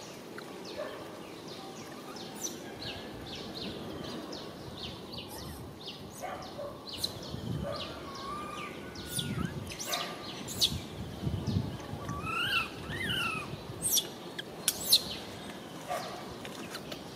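Outdoor ambience of short, sharp high chirps repeating irregularly throughout, with two brief rise-and-fall calls in quick succession about three-quarters of the way in.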